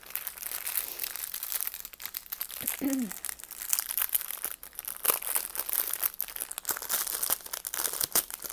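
Clear plastic bag of diamond-painting drill packets crinkling and crackling continuously as hands squeeze and work at it.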